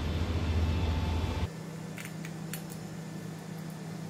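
A loud steady low hum stops abruptly about one and a half seconds in, leaving a quieter steady hum. Over it come a few small clicks of tools and wire being handled at the electromagnetic lock's terminal block.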